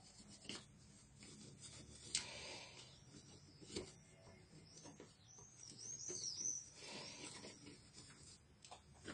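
Faint rubbing and scraping of fingers working at the processor area of a bare HP Mini 110-3100er laptop motherboard, with a few light clicks and a run of thin squeaks about two-thirds of the way in.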